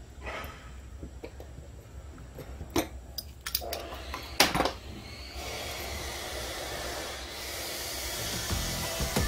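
Several sharp metal clicks and knocks as a small steel knife and a pipe wrench are handled on a steel worktable, over a low steady hum. From about halfway a hiss swells and grows louder toward the end.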